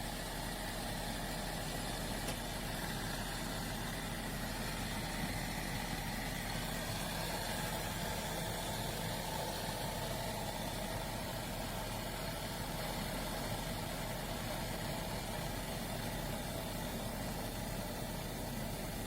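Small stainless steel electric travel kettle heating water: a steady rumbling hiss with a low, even hum underneath.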